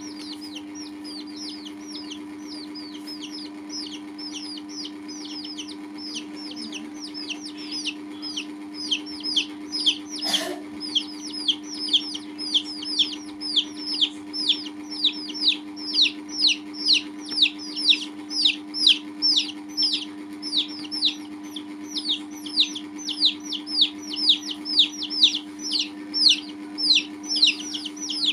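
Young chicks peeping: a steady run of short, high peeps that slide downward in pitch, about two or three a second, growing louder after the first several seconds. A steady low hum runs underneath.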